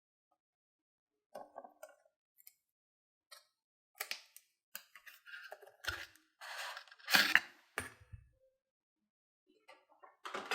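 Hands handling a 4K Blu-ray steelbook and its packaging: scattered rustles and clicks with short silences between them, the loudest about seven seconds in.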